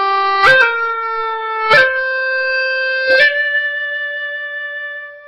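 Hulusi (Chinese gourd cucurbit flute) playing a short ascending phrase, each new note entered with a quick grace note that slides into it: the second-degree overlapping slide (叠滑音) technique. The last note is held for about two seconds and fades near the end.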